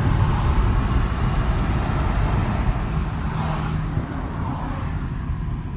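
Road noise inside a moving car's cabin: a steady low rumble of engine and tyres at highway speed. It turns a little quieter and duller about four seconds in.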